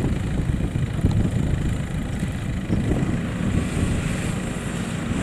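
Low, steady rumble of rice-harvesting machinery engines running.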